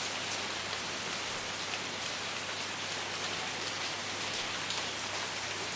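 Steady rain falling on a hard surface: a constant hiss with the sharp ticks of individual drops scattered through it.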